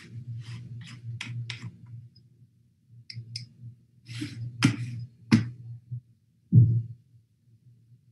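Sharp clicks from working a computer, with five in quick succession at the start and several more between about three and five and a half seconds in, over a low steady hum. A dull thump near seven seconds in is the loudest sound.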